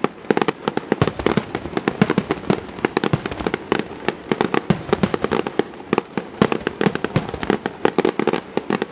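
Professional fireworks display: a dense, irregular barrage of sharp bangs from aerial shells bursting and firing, several a second, over continuous crackle.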